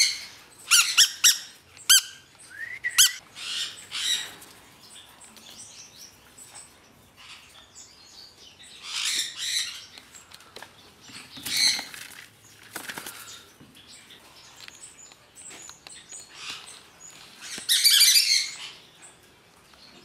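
Sun conure chicks squawking in harsh, scattered bursts as they are handled, loudest in the first few seconds and again near the end.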